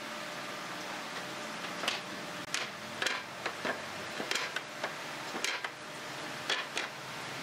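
Loose pine planks knocking and clacking against each other and the wooden frame as they are laid down and shifted into place: about a dozen sharp, irregular wooden knocks over a steady background hiss.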